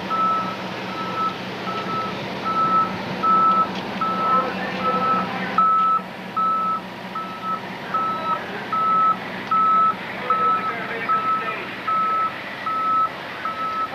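A vehicle's reversing alarm beeping steadily on one pitch, just under two beeps a second, over the hum of its running engine.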